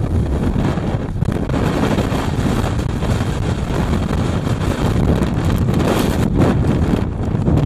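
Blizzard wind blasting across the microphone: a loud, continuous rumbling rush, heaviest in the low end, surging and easing with the gusts.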